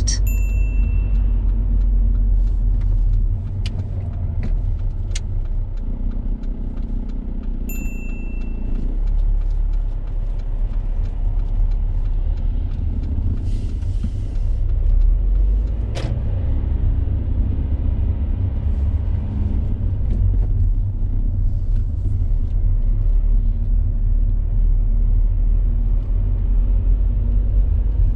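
A car's cabin noise while driving: a steady low rumble of engine and road, with a few sharp clicks and two short high-pitched beeps, one near the start and one about eight seconds in.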